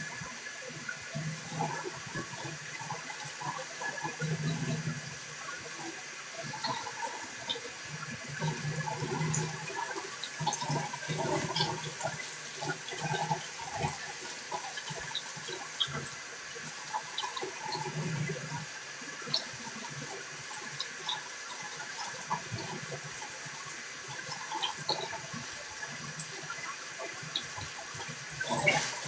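Steady running water with small splashes and drips, with irregular low rumbling underneath.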